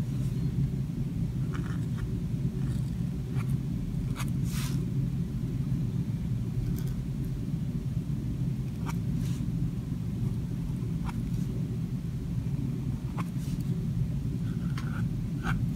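Dip-pen nib scratching across sketchbook paper in about a dozen short, faint strokes, over a steady low hum of room noise.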